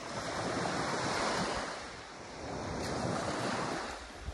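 Small waves breaking and washing up the sand, the wash swelling and easing twice, with wind buffeting the microphone.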